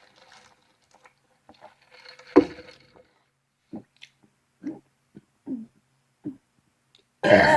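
Soda being swallowed in gulps, about four short gulps a second or less apart, after a sudden loud sound about two seconds in. A loud burp begins near the end.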